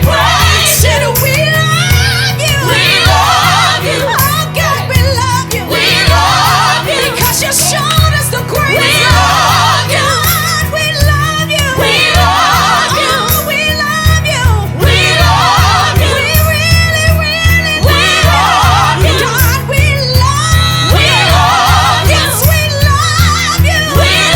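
Gospel worship music: singing over instrumental backing with a steady beat.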